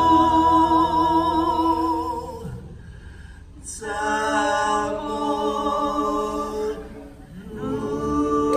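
Voices singing unaccompanied in long held notes with vibrato, in three phrases separated by short breaks.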